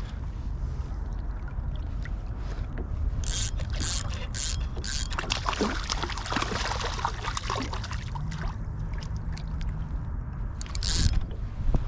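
Water splashing beside a fishing kayak as a hooked little spotted bay bass is brought in, over a steady low rumble of wind on the microphone. There are a few sharp splashes or knocks, one group a few seconds in and another near the end.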